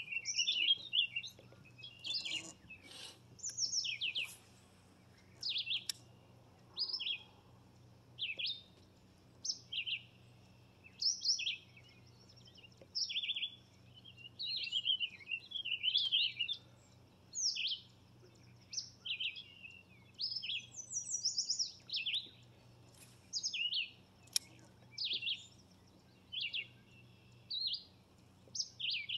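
A songbird singing short chirped phrases over and over, roughly one a second, over a faint steady low hum.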